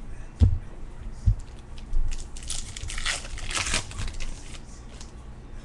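Two dull knocks, then a baseball card pack's wrapper being torn open and crinkled for about two seconds.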